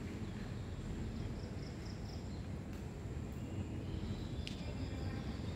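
Outdoor background ambience: a steady low rumble with a thin, steady high whine. A faint run of about five quick high chirps comes about a second in, and a single sharp click comes near the end.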